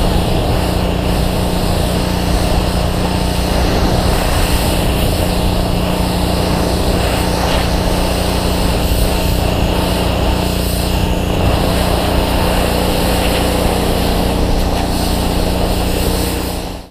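Pressure washer running steadily, its high-pressure jet hissing as it blasts dust off a tractor's cab roof. The sound cuts off abruptly just before the end.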